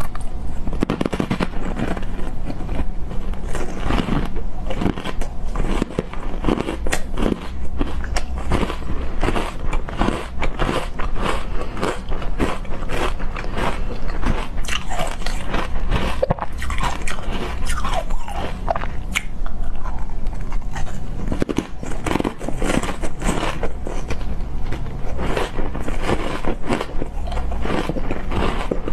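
Green matcha ice cookies being bitten and chewed: a dense, unbroken run of sharp, crackly crunches as the ice breaks between the teeth.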